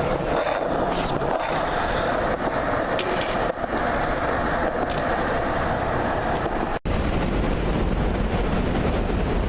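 Steady outdoor street noise, the kind of traffic rumble a camera picks up while riding. It cuts out for an instant about seven seconds in and returns as a deeper, steady rumble.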